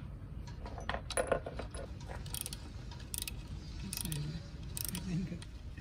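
Small metal parts clinking and scraping as gloved hands handle the water pump housing and its parts on the driveshaft of a Yamaha 8 outboard's lower unit. A quick run of clicks comes about a second in, then short scrapes roughly once a second.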